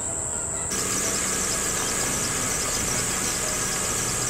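Mazda Tribute engine idling with a steady low hum, starting about a second in, under a loud high buzz of cicadas.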